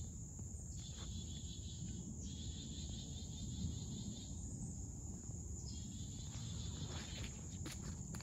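Insects chirring in the woods: a steady high drone under a lower pulsing chorus that swells and drops out in bouts of a second or two. A few faint rustles near the end.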